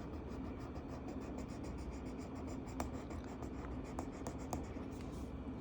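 Marker tip rubbing back and forth on a colouring-book page in quick, even strokes while filling in an area, with a few faint taps, over a low steady hum.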